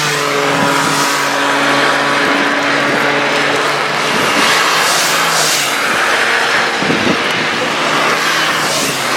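Citroën C1 race car engine running at steady, high revs, its pitch easing slightly at the start. Over it a hiss swells twice, around the middle and near the end.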